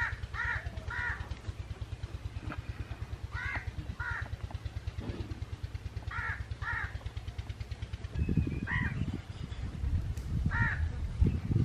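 Crows cawing in short harsh calls, often in pairs, repeating every second or two over a steady low pulsing hum. From about eight seconds in, louder low rumbling noise joins.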